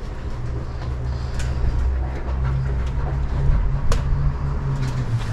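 Low steady hum of an electric hoist motor as it lowers an outboard motor on its cable and chain, with a few light metallic knocks.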